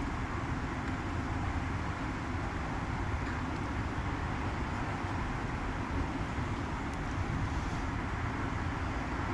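Kis Wash commercial tumble dryer running on high heat: a steady rumble from the turning drum and fan, loaded with towels and dressing gowns.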